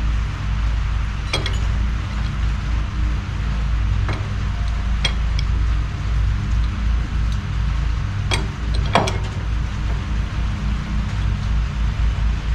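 A steady low engine drone, with several sharp metallic clinks of wrenches on steel fittings: one about a second in, two around four to five seconds, and two close together near eight to nine seconds.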